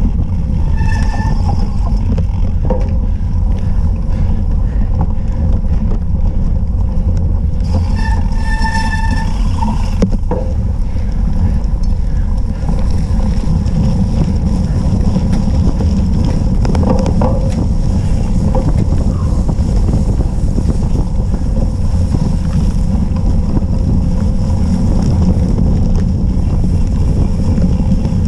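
Wind buffeting a bike-mounted action camera's microphone, mixed with the rumble of a cyclocross bike riding over grass and dirt, a loud steady low rumble. Two brief higher tones cut through, about a second in and again around eight to nine seconds in.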